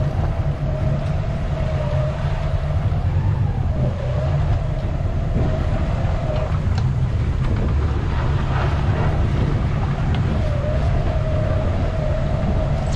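Boat engine running at low speed, a steady low rumble with a wavering whine over it that fades out for a few seconds in the middle.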